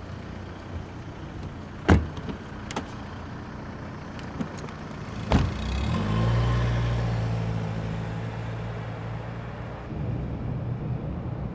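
A car door is slammed shut about two seconds in, with a second door thud a few seconds later. Then the car's engine runs as the car pulls away, heard from inside the cabin near the end.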